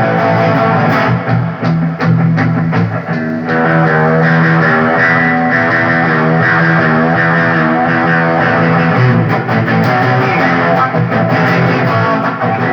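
Electric guitar played through a Zoom 505 II multi-effects pedal: a melodic line of held notes, several of them bent or wavering in pitch.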